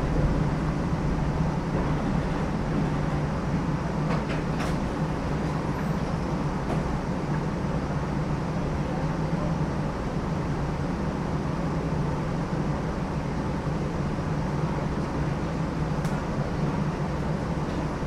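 New Orleans Canal Street line streetcar running along its rails, heard from on board as a steady low rumble.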